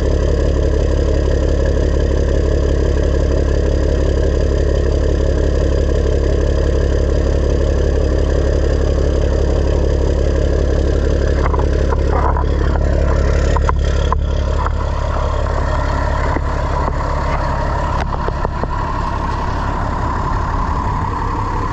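Diesel work truck engine idling steadily with a deep, even hum, with a few short clicks or rattles partway through.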